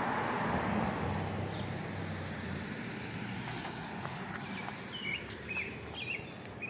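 A car passing on the street, its tyre and engine noise loudest in the first second or so and then slowly fading. Short bird chirps come in near the end.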